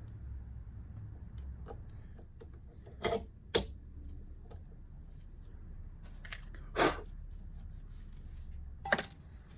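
Metal tools clicking and clinking on a Tecumseh electric starter's gear assembly as a screwdriver works at the retaining clip, with a few sharper clicks about three seconds in, near seven seconds and near the end, over a low steady hum.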